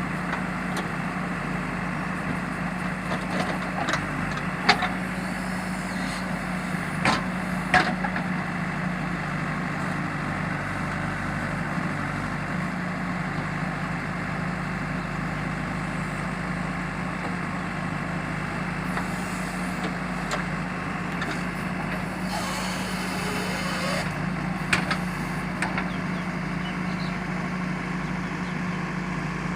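JCB backhoe loader's diesel engine running steadily, with a few sharp knocks now and then.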